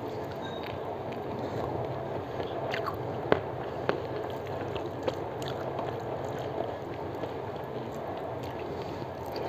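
Eating rice by hand from a steel plate: fingers squish and mix the rice and aloo posto, with chewing, over a steady background noise. A few sharp clicks sound about three, four and five seconds in.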